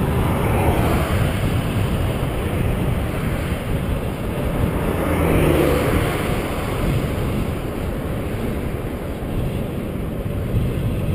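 Wind rushing over the microphone of a camera on a moving bicycle, mixed with passing traffic: a car goes by at the start, and another passing vehicle swells and fades about five to six seconds in.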